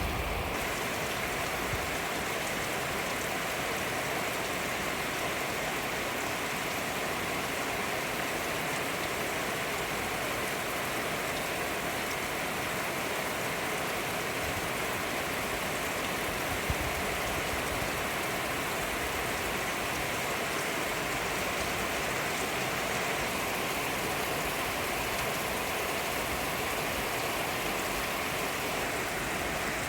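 Steady rain falling and pattering on surfaces, an even hiss with one brief tick about halfway through.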